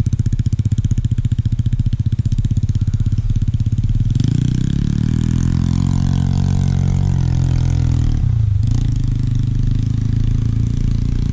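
Small dirt bike engine running: rapid even pulsing for the first few seconds, then from about four seconds in a note whose pitch falls steadily as the bike labours up the hill. It breaks off briefly about eight and a half seconds in, then runs on steadily.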